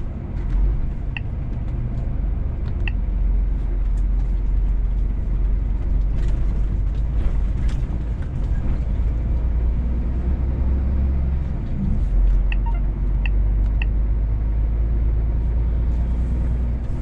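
Scania S500 truck's diesel engine heard from inside the cab, a steady low rumble as the truck manoeuvres slowly. A few short electronic beeps sound about a second in, near three seconds, and three more around twelve to fourteen seconds.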